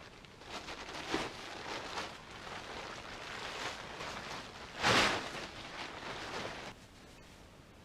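Rustling and handling noises of camping gear being set up, irregular and scratchy, with one louder rustle about five seconds in.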